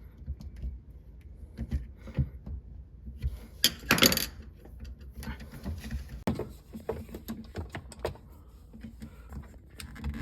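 Flathead screwdriver prying and wiggling a plastic refrigerator door light switch out of its housing: small clicks and knocks, with a louder scraping rattle about four seconds in.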